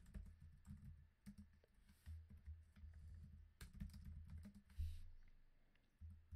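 Faint typing on a computer keyboard: irregular keystrokes in quick runs with short pauses.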